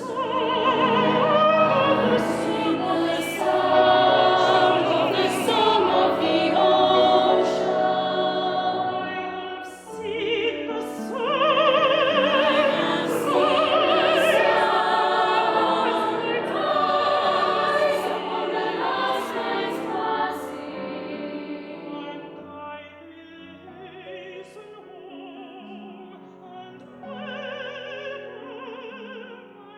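Classical art song sung by female voices, a mezzo-soprano with wide operatic vibrato and a girls' choir, with piano. The singing is loud at first, dips briefly about a third of the way in, and grows quieter for the last third.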